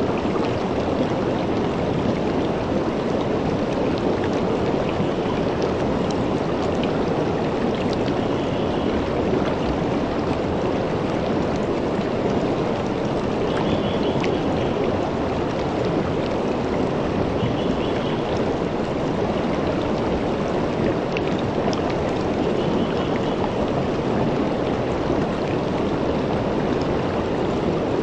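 Shallow river running over and around rocks: a steady rushing of water. A faint high chirp recurs every few seconds behind it.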